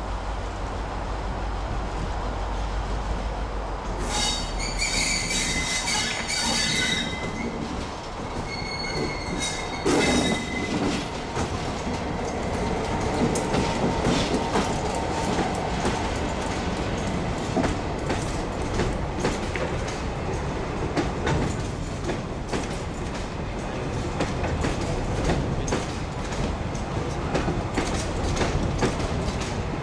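Class 59 diesel locomotive hauling empty aggregate hopper wagons approaches and passes, its EMD two-stroke V16 engine droning low. From about four seconds in the wheels give a high, ringing squeal for a few seconds, and again briefly around ten seconds in. The empty hoppers then roll by with a steady clatter of wheels over rail joints.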